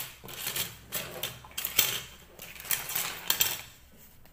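Hard plastic parts of a toy playground set clicking and clattering on a wooden tabletop as they are tipped out of a plastic bag and handled, with the bag rustling. The clatter dies down shortly before the end.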